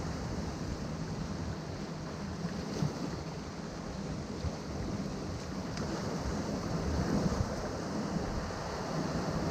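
Ocean surf breaking and washing among rocks, a continuous rush of water that swells louder about seven seconds in.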